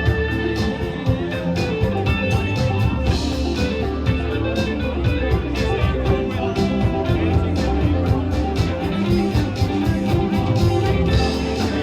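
Rock band playing with electric guitar, bass and drums at a steady beat.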